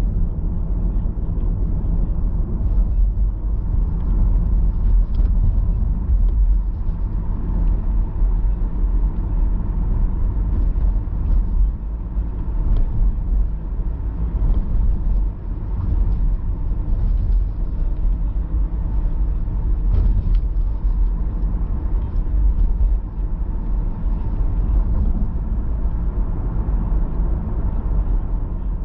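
Steady low rumble of a car's engine and tyres, heard from inside the cabin while driving, with a few faint clicks.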